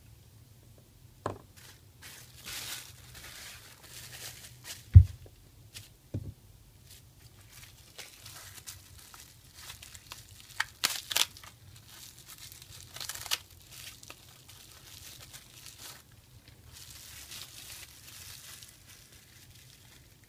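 Plastic bubble wrap crinkling and rustling as small parts are unwrapped by hand, in several short spells. A few knocks, the loudest a dull thump about five seconds in.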